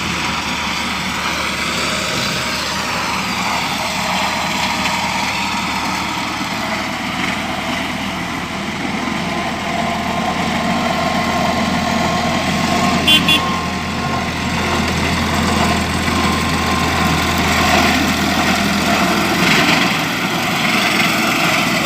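The engine of a motorised hay mower running steadily under load while it cuts grass. It grows louder through the middle as the machine comes closer.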